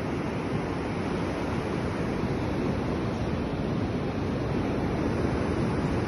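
Sea surf washing onto a sandy beach, a steady rushing noise, with wind blowing across the microphone.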